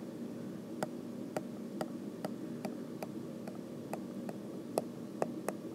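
Pen stylus tapping on a tablet screen while handwriting, a light click about twice a second over a faint steady hum.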